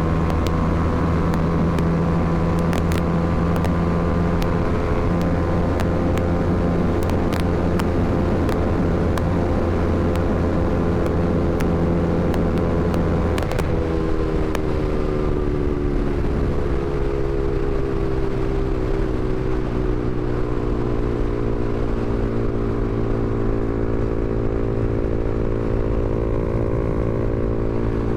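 Honda CBR300R's single-cylinder engine running at a steady pitch. About halfway through the note changes abruptly, then falls gradually over several seconds before settling at a lower steady pitch, as when the throttle is eased off.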